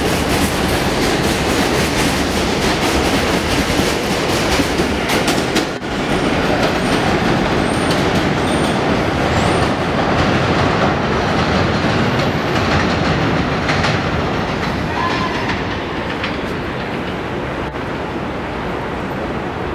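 New York City subway train pulling out along the elevated track, wheels clattering over the rail joints, then drawing away and slowly fading over the last few seconds. A few short, high wheel squeaks come through in the middle.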